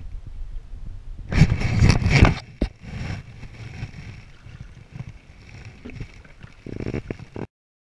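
Paddling a small Selway Fisher Wren canoe: paddle strokes and water sloshing around the hull, with a loud rush of water lasting about a second from about a second and a half in. The sound cuts off abruptly near the end.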